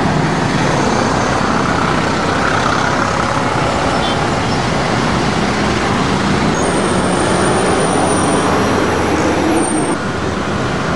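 Road traffic: cars driving past with a steady engine and tyre noise.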